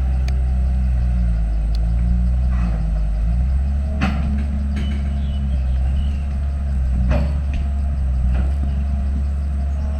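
Diesel engine of heavy earthmoving machinery running steadily, its note shifting up and down as it works, with a few sharp metallic knocks about four, seven and eight seconds in.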